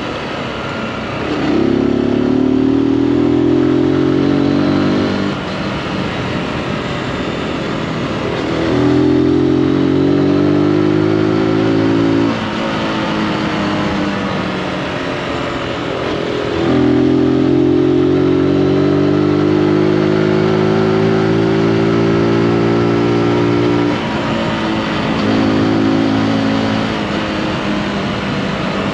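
Zontes G155 scrambler's single-cylinder engine pulling hard four times, its note climbing under throttle and then dropping away abruptly as the throttle closes and the engine winds down between pulls. The longest and loudest pull comes a little past halfway.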